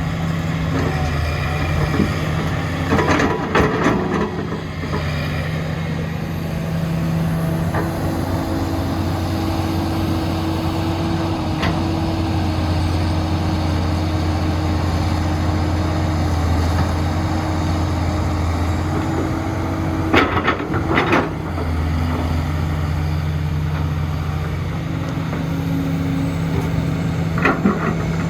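Heavy diesel engine of construction machinery running steadily, with three short bursts of clatter and banging: one about three seconds in, one about twenty seconds in, and one near the end.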